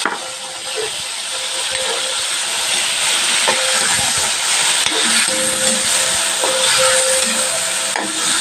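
Meat sizzling in hot oil with onion and garlic in a wok, a steady hiss, as it is stir-fried with a spatula that scrapes the pan now and then.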